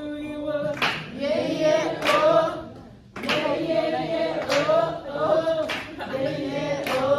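A group of voices singing together in unison, with a sharp hand clap about once a second.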